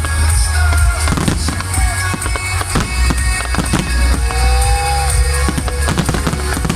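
Fireworks bursting in many sharp bangs over loud music with heavy bass played through the show's loudspeakers.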